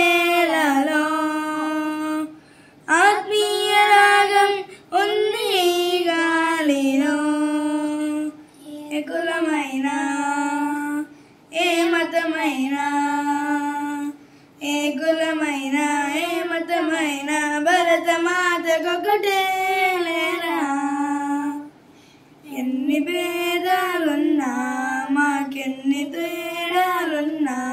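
Two young boys singing a Telugu patriotic song together, unaccompanied, in sung phrases of a few seconds each with short pauses for breath between them.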